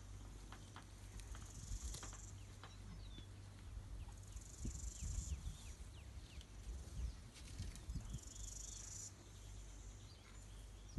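Insects trilling in three short bursts of about a second each over a low steady rumble, with scattered soft crunches and rustles of African elephants tearing up and chewing grass.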